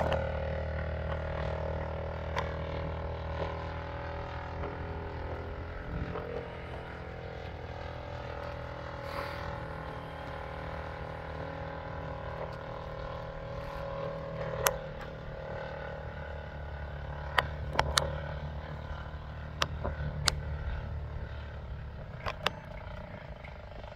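Engine and propeller of a quarter-scale model Spitfire in flight overhead, a steady drone that holds its pitch and fades slowly. A few sharp clicks come in the second half.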